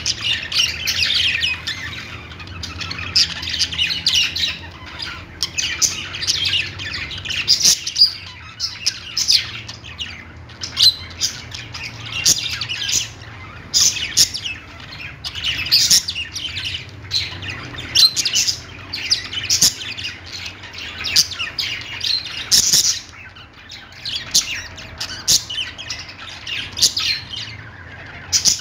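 Small pet parrots chattering, with dense overlapping chirps broken every second or so by sharp, louder squawks.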